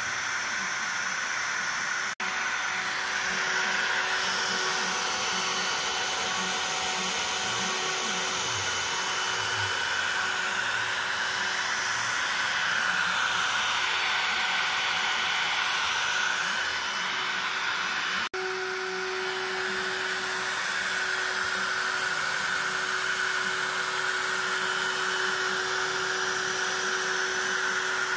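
Makita router spinning at speed as the spindle of a desktop CNC machine, cutting into wood: a steady whine with rushing air. The sound drops out for an instant twice, about 2 and 18 seconds in.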